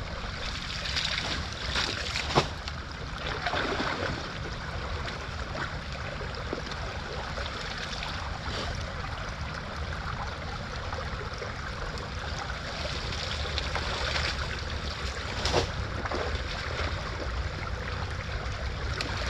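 Shallow creek water flowing and splashing as sticks and wet leaf litter are pulled out of a blockage by hand, with a couple of sharp knocks from the sticks.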